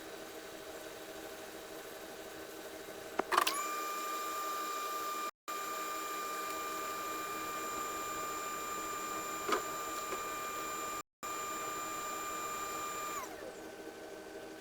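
Hot air rework station blower switches on with a click about three seconds in, spins up to a steady high whine, and shuts off near the end, its pitch falling as it spins down. A steady low hum of other bench equipment runs underneath.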